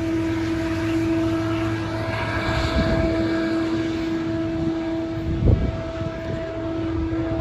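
Diesel locomotive running with a steady droning tone of unchanging pitch over a low rumble, with a brief low thump about five and a half seconds in.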